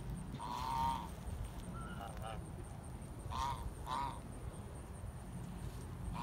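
Geese honking: a loud honk about half a second in, softer calls around two seconds, then two honks in quick succession a little past three seconds, with another starting at the very end.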